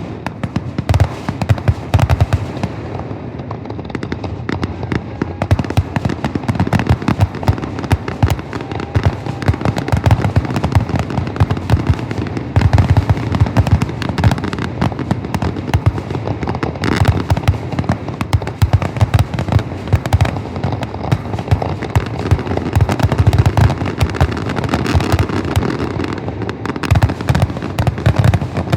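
Fireworks grand finale: a dense, continuous barrage of shell bursts and crackling, many bangs a second.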